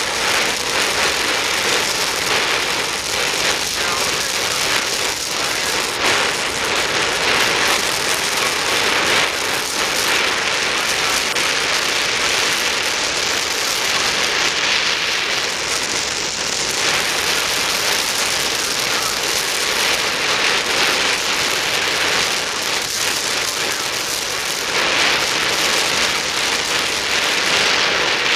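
Oxy-acetylene welding torch, set to a neutral flame, burning with a steady loud hiss while fusion welding mild steel.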